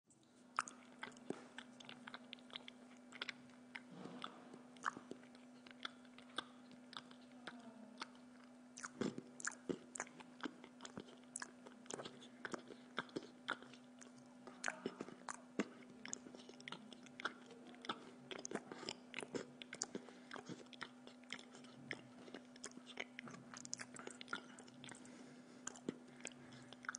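A man chewing a mouthful of meat sandwich in a bread roll close to the microphone: a run of irregular wet clicks and smacks from his mouth, over a faint steady hum.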